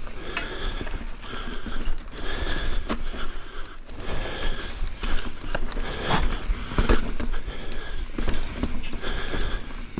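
A mountain biker breathing hard in quick, even breaths while riding, over the rattle of the bike on rough trail and wind rumble on the microphone, with a few sharp knocks from the bike hitting rocks or roots, the loudest about six and seven seconds in.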